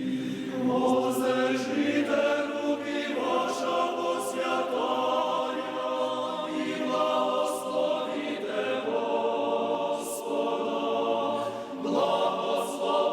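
A choir singing a slow chant, voices holding each note for a second or two before moving to the next.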